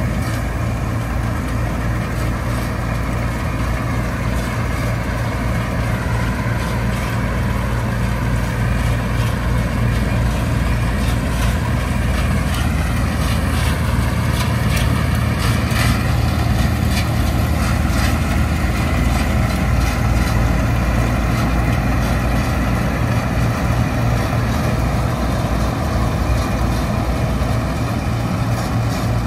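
Bizon Super Z056 combine harvester's diesel engine running steadily at a constant speed.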